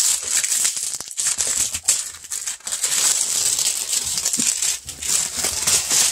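Clear plastic shrink wrap crinkling and crackling without pause as it is pulled off a boxed book set by hand.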